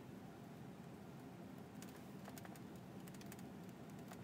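A few faint, scattered computer clicks over a low steady hum.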